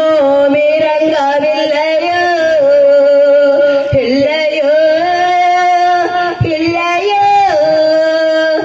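A woman singing into a handheld microphone, holding long notes with short breaks between phrases.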